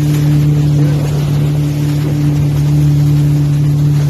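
Jet ski engine running at a steady, unchanging pitch while under way, with water and wind rushing past.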